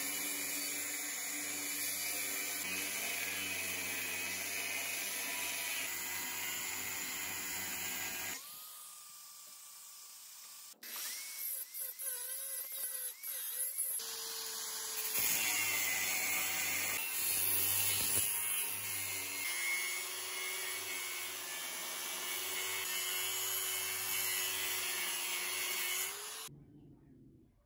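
Handheld angle grinder with an abrasive disc cutting steel channel: a steady, loud grinding with a high motor whine. About eight seconds in it falls away for several seconds, comes back, and stops about a second before the end.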